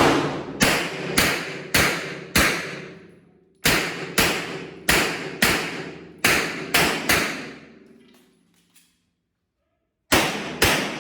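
Pistol shots fired in quick strings on a practical-shooting stage, each a sharp crack with a short ringing tail. There are about five shots at an even pace, a brief pause, four more, then three, then silence for about two seconds, and two more cracks near the end.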